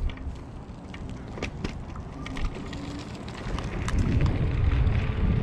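Wind buffeting the microphone and tyre rumble from a moving electric scooter, with a few sharp clicks and rattles. The rumble grows louder about three and a half seconds in.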